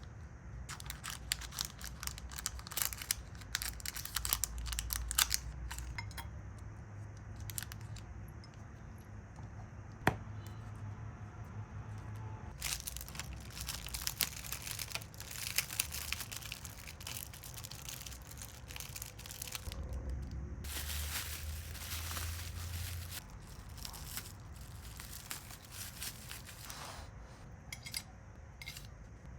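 Packaging being crinkled and torn by hand, in three stretches of a few seconds each, with one sharp click about ten seconds in.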